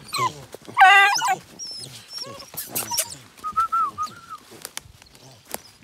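Young hound puppies whining and yapping close by: a string of short, high, wavering cries, the loudest about a second in, then thinner whines, with rustling and small clicks around them.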